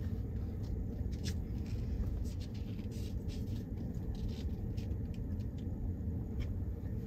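Ford F-150 Lightning electric pickup rolling slowly over rough grassy ground, heard inside the cabin: a steady rumble of tyres and suspension with no engine note, dotted with scattered light clicks and ticks.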